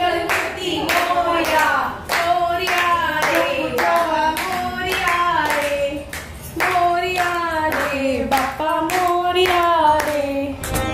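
Devotional aarti singing with steady rhythmic hand clapping, about two claps a second; the singing pauses briefly between lines.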